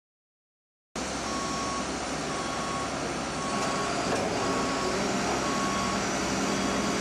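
Container lorry's reversing alarm beeping about once a second, each beep about half a second long, over the lorry's engine running. The sound cuts in suddenly about a second in.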